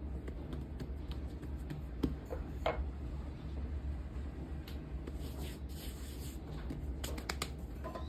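Soft rubbing and scattered light taps of hands pressing and flattening a flour-dusted dough round on a countertop, over a steady low hum.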